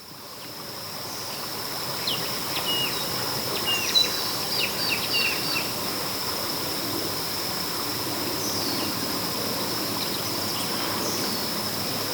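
Mangrove wetland ambience: a steady high-pitched insect drone over a soft background hiss, with a run of short bird chirps between about two and six seconds in and a few brief falling calls later. It fades in at the start.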